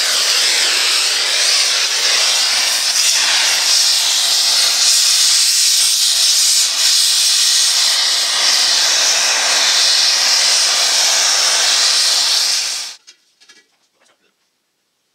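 Cutting torch hissing steadily as it burns through the steel end of a disc-harrow gang rod. The hiss stops abruptly near the end, leaving only a few faint clicks.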